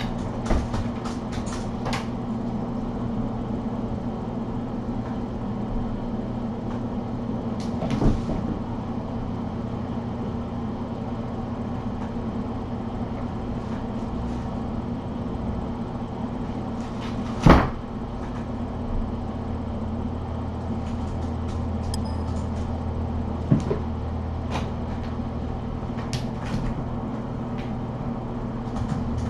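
Steady low room hum with a few scattered knocks and thumps; the loudest knock comes just past halfway.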